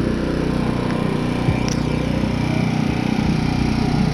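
Small engine of an off-road vehicle running steadily under way, with a constant low drone.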